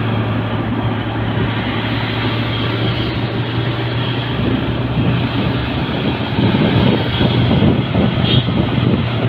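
A vehicle engine droning steadily with road noise, heard from a moving vehicle, growing rougher and a little louder from about six seconds in.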